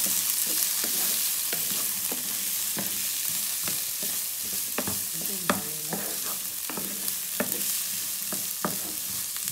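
Diced carrots, peas, green beans and onion sizzling in a nonstick frying pan while a wooden spatula stirs them, with irregular scrapes and taps of the spatula against the pan over a steady frying hiss.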